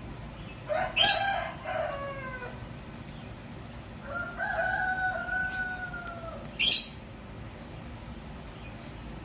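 Rooster crowing twice: first a crow in broken, falling parts, then a long held crow that falls slightly at the end. Two short, sharp hiss-like noises, the loudest sounds here, come about a second in and again as the second crow ends.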